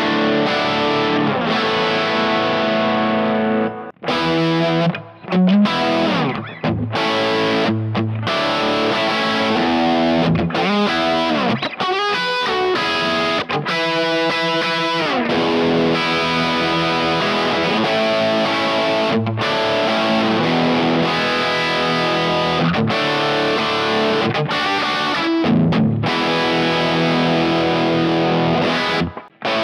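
Electric guitar played through a Kemper profile of the Fried Taco 20, a 20-watt amp with two EL84s and a Friedman-style high-gain preamp, giving distorted chords and riffs. About four seconds in there is a short break, then a second guitar and profile continue with sliding notes and a run of fast repeated notes.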